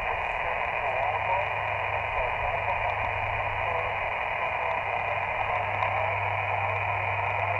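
Elecraft KX2 ham transceiver receiving on single sideband: a steady hiss of band noise squeezed into a narrow telephone-like band, with a weak distant station's voice faint in the noise. A low steady hum sits underneath.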